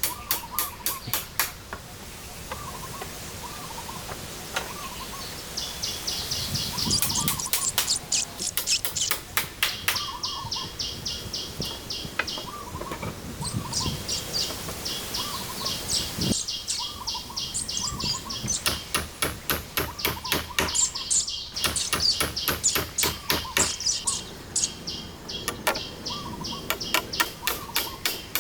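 Birds chirping in the woods: a short call repeated about once a second, with long runs of fast, high chirps that start and stop every few seconds.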